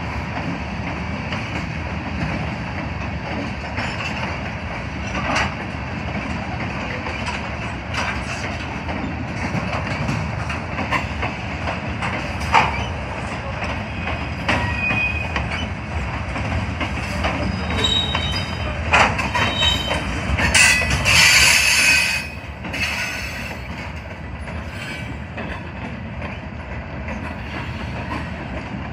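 Freight train of covered hopper cars rolling slowly past: a steady rumble with scattered clanks from the wheels and couplers, and thin wheel squeals. About two-thirds through, a loud, harsh high screech lasts a second or two.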